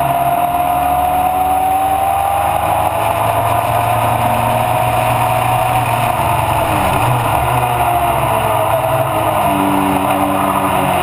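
Mallock Mk8B racing car's engine running at race speed: a loud, steady drone with a whining note that rises slowly over the first few seconds and drops away again later.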